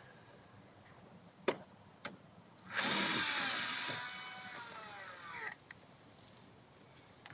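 Two clicks, then a drill runs for about three seconds, its pitch falling steadily before it stops: boring a small hole.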